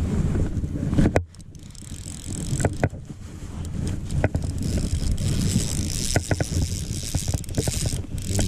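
Wind rumbling on the microphone, with scattered sharp clicks and rustles from a fly rod, reel and line being handled while a hooked carp is played.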